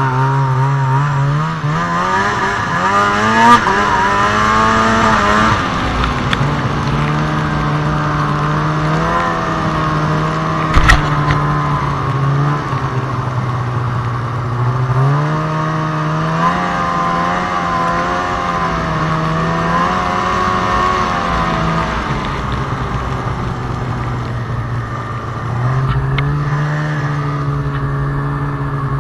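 Snowmobile engine running under way, its pitch rising as the throttle opens and dropping back several times. A short knock comes about eleven seconds in.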